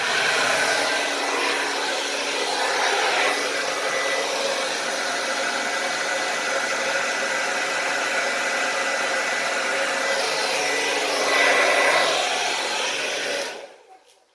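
Hand-held hair dryer running steadily, blowing wet acrylic paint across a canvas. It switches off about a second before the end and the noise dies away.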